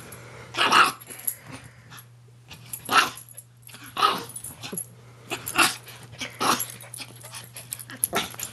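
Two Maltese dogs play fighting: short growls and snarls come every second or so, over a steady low hum.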